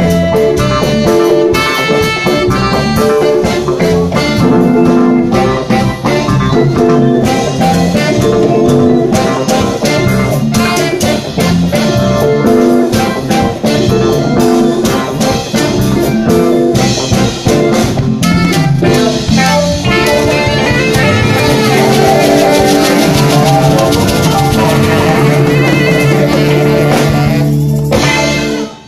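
Live afrobeat-highlife band playing: brass horns, electric guitar and drum kit in a busy, rhythmic groove. Over the last several seconds the band holds a long chord, then stops suddenly just before the end.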